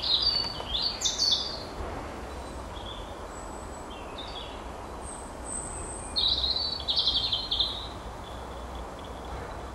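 Songbirds singing: a few short chirping phrases in the first second and a half and a longer trilled phrase about six seconds in, over a steady low rumble.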